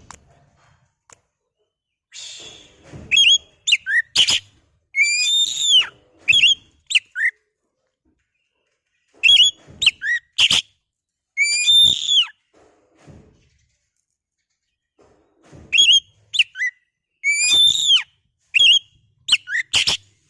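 Oriental magpie-robin (kacer) singing: three bouts of loud whistled phrases, each made of short rising and falling notes, the bouts separated by a few seconds of silence and repeating almost the same phrases.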